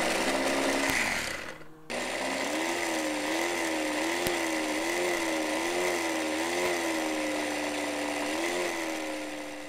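Electric hand mixer whirring, its pitch wavering up and down; it cuts out briefly about two seconds in, starts again and winds down near the end.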